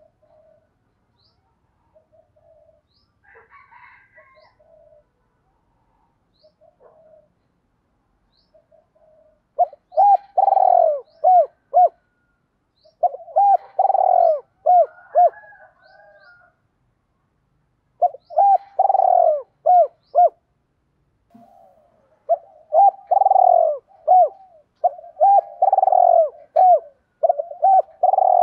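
Spotted dove cooing. The first several seconds hold only a few faint, soft notes; from about ten seconds in come repeated coo phrases every few seconds, each a loud first note followed by a few short clipped notes.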